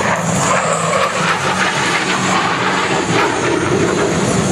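F-16 Fighting Falcon jet flying past in a knife-edge pass, its engine noise loud and steady.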